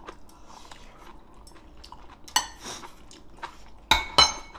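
Metal chopsticks and bowls clinking during a meal: a few light taps, a sharp click a little past two seconds in, and two loud ringing clinks of metal on ceramic near the end.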